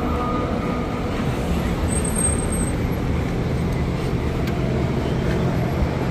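Street traffic noise: cars moving slowly past, with a steady low engine hum.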